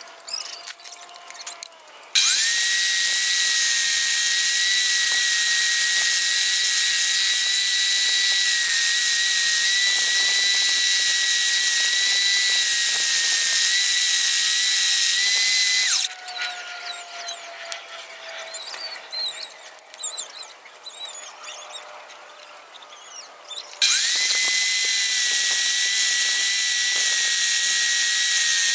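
Homemade scroll saw starting up about two seconds in and running with a steady high-pitched whine as it cuts wood, cutting off about halfway. After a stretch of small clicks and handling noise, it starts again near the end.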